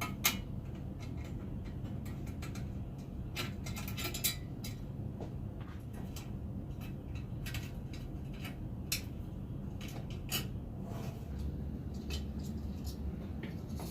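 Hand tools working on a small engine: scattered metallic clicks and clinks as the screws are taken out, over a steady low hum.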